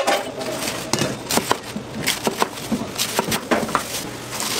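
Chef's knife cutting through a head of green cabbage on a plastic cutting board: crisp, irregular crunching cuts and knocks of the blade on the board, several a second.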